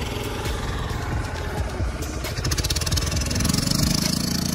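Boat engine running steadily under way, a low, continuous mechanical drone with a fast pulsing beat.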